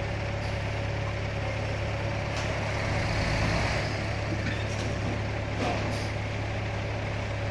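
Dump truck's diesel engine running steadily with a low hum while its raised bed tips a load of dirt out.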